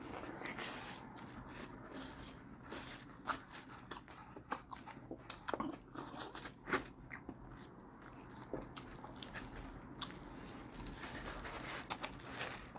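A person chewing and biting into a chicken torta sandwich with lettuce, heard up close: irregular soft, wet clicks and small crunches.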